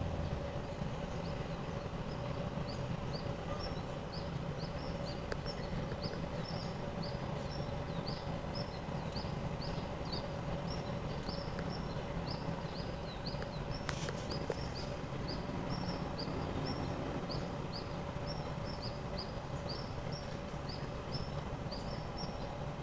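Steady low rumble of a Boeing 787-8 Dreamliner's Rolls-Royce Trent 1000 engines heard at a distance, with a bird or insect chirping high and fast, about two or three short chirps a second, from about two seconds in.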